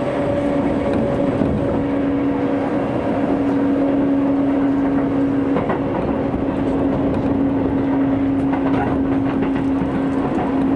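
Hokuso Railway 9000 series electric train heard from inside the car while running at speed: a steady motor hum over continuous wheel and track noise, with a few faint rail clicks.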